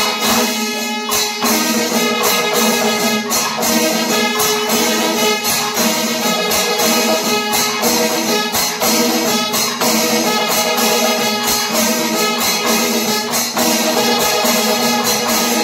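Panchavadyam temple ensemble playing: dense, rapid drum strokes and clashing ilathalam cymbals over steady, held kombu horn tones.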